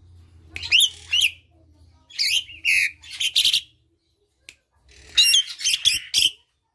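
Javan pied starling calling in short bursts of harsh, scratchy squawks and chatter, about four bursts separated by brief pauses.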